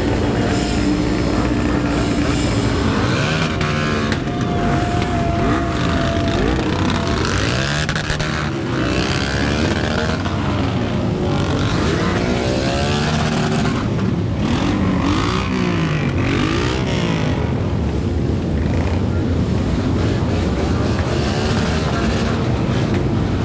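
Several motorcycle engines revving again and again, the pitch climbing and dropping in quick runs, most of them in the middle stretch.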